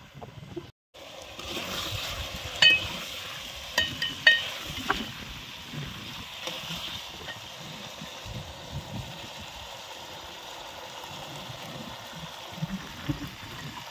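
A steel ladle stirring mutton in an aluminium cooking pot, clinking sharply against the metal several times between about 2.5 and 5 seconds in. The meat with onions and garlic sizzles in the pot under a steady hiss.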